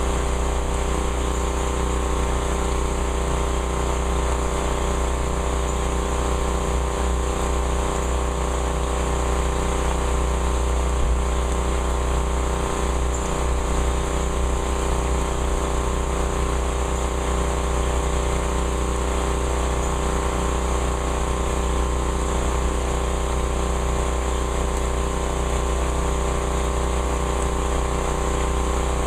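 A motor running steadily, a constant hum with a deep low rumble and an even hiss over it.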